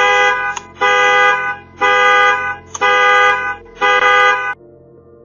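Car alarm sounding the horn in repeated honks, five in about a second's rhythm, stopping about four and a half seconds in; the alarm was set off by an attempted break-in.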